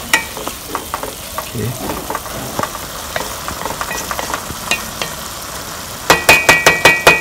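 A wooden spatula stirring and scraping wet rice in a metal pot over a low sizzle. Near the end, a quick run of about eight sharp knocks as the spatula is tapped against the pot, which rings.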